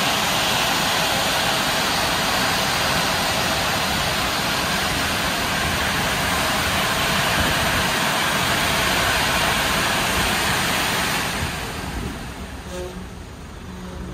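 Touchless automatic car wash's air-dryer blowers running with a steady loud rushing of air during the final drying stage, dying away about eleven or twelve seconds in.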